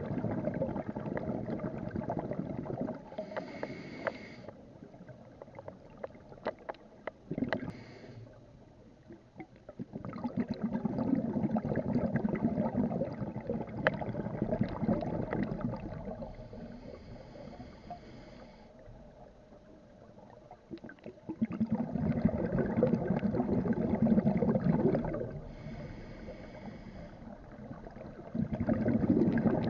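Scuba regulator breathing underwater. Each breath is a short hissing inhale through the regulator, then a longer rumbling, gurgling rush of exhaled bubbles, several breaths in a row.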